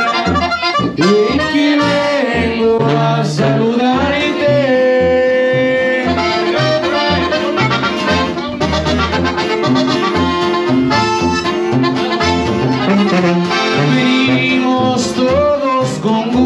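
Live amplified music: a man sings into a microphone over acoustic guitar and band accompaniment with a steady bass line, playing without a break.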